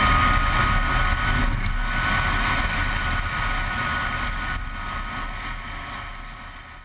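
2012 Zero S ZF9 electric motorcycle at speed: a steady high motor whine over wind rushing past the on-board microphone, fading out near the end.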